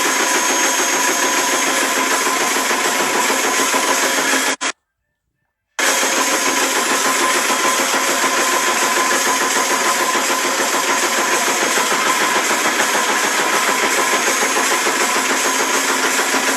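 High-speed automatic 45-ton press machine running, its rapid stamping strokes merging into a steady mechanical clatter. The sound cuts out completely for about a second a little before the middle, then resumes unchanged.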